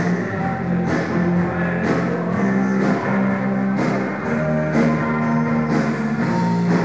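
Rock band playing a loud instrumental passage with electric guitar, bass and a drum kit, with a drum and cymbal hit about once a second.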